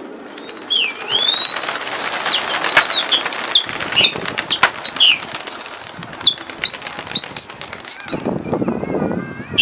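A flock of domestic pigeons taking off and flying, a dense flurry of flapping and clapping wings, with repeated high whistles and chirps over the wingbeats.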